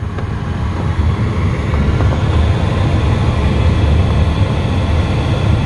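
Steady low rumble of air rushing past a glider's canopy in flight on aerotow.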